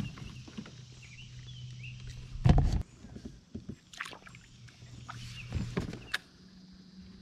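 Handling noise on a kayak while a hooked bass is being fought: several knocks and thumps against the boat, the loudest about two and a half seconds in, over a steady low hum that stops about six seconds in.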